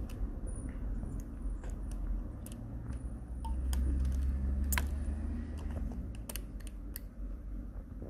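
Small light clicks and taps of plastic as fingers handle the power-button piece against the plastic top case of a Lenovo IdeaPad 100, about a dozen scattered through, the sharpest a little before the middle. A low rumble underneath swells for a couple of seconds midway.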